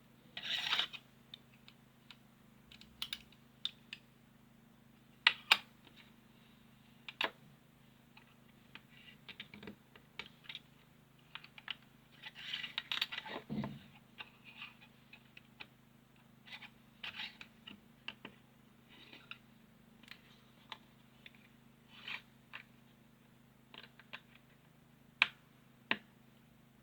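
Small plastic figure and building-block pieces being handled and fitted together: scattered sharp clicks, taps and scrapes of plastic, with a denser stretch of handling about twelve to fourteen seconds in.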